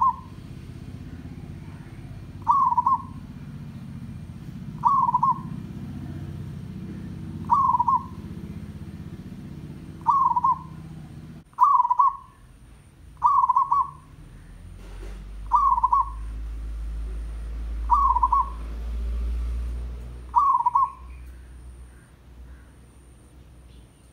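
Zebra dove (merbok/perkutut) calling: a short cooing note repeated about ten times, roughly every two and a half seconds.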